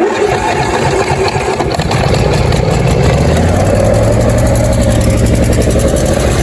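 Briggs & Stratton engine on a Husqvarna lawn mower firing suddenly and running steadily on choke, a start that gas poured onto the air filter has made possible.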